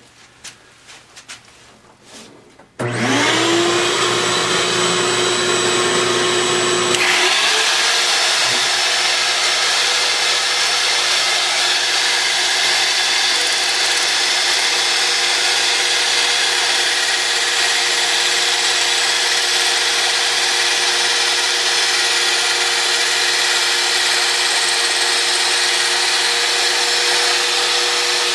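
Trim router switching on about three seconds in, its whine rising and settling into a steady high pitch. A few seconds later a vacuum cleaner starts, adding a loud steady rushing hiss, while the router's end mill cuts square hardwood stock down to a round dowel as the lathe feed drives it through.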